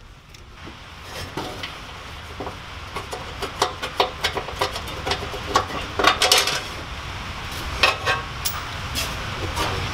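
Sheet-metal exhaust heat shield clattering and scraping against the truck's frame and exhaust pipe as it is worked loose and pulled down: a string of irregular metallic knocks and rattles.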